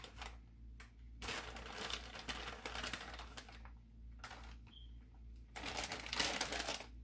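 Plastic shredded-cheese bag crinkling and rustling as cheese is shaken out of it into a bowl of batter, in two spells: from about a second in for a few seconds, and again near the end.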